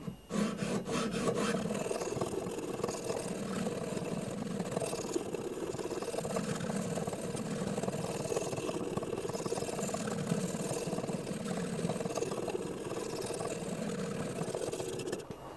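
Abrasive stone on a guided sharpening system's rod, stroked back and forth over a CPR-steel knife blade: a steady scraping rasp that swells with each stroke, about one every one and a half to two seconds. The stone is reshaping the blade's convex bevel as it works toward the cutting edge.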